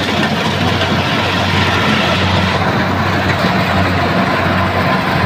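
An engine of rice-harvesting machinery running steadily at constant speed, with a low, even hum under a loud mechanical din.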